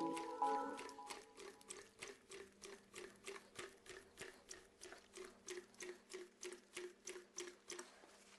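Faint, regular strokes of a hand priming pump on a diesel fuel system, about three a second. The pump has turned stiff to work, which means the bypass valve is opening and the system is primed.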